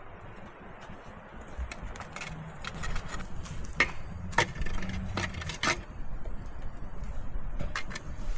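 Wood campfire crackling, with irregular sharp pops that come thick from about two seconds in, over a steady low background rush.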